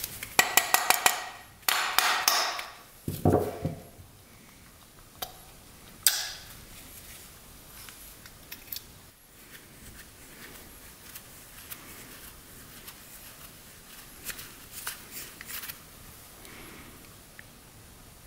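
Screwdriver clicking and scraping against an old Briggs & Stratton carburetor as it is pried open, with a thud a little after three seconds in. After that, occasional small metal clicks and taps as the carburetor is turned and its parts are worked loose by hand.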